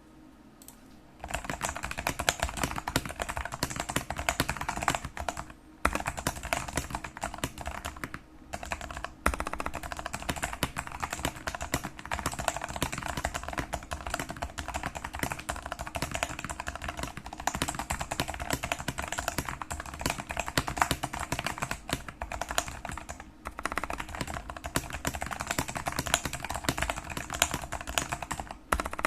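Mechanical keyboard with Jailhouse Blues tactile switches, stems still unmodified, being typed on fast and continuously: a dense stream of key clacks starting about a second in, with a few brief pauses. Recorded through a Redmi phone's microphone.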